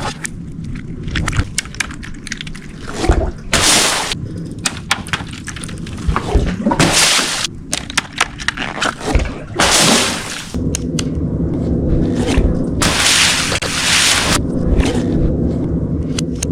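Water-filled balloons bursting and splashing, about six times, each splash lasting under a second, with short clicks and knocks in between.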